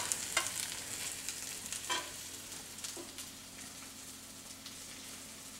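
Brussels sprouts frying in butter and garlic in a cast-iron skillet, with a steady sizzle. A utensil clicks against the pan a few times in the first three seconds, and the sizzle grows fainter toward the end.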